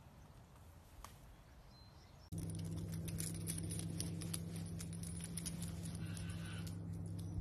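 Quiet at first, then, from about two seconds in, a steady low hum with many light clicks and jingles, like a running dog's collar tags, as small dachshunds run and play on grass.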